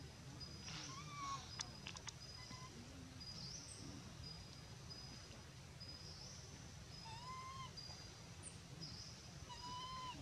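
Macaques giving short coo calls that rise and fall in pitch, one about a second in and several in quick succession near the end. A short high chirp repeats throughout behind them.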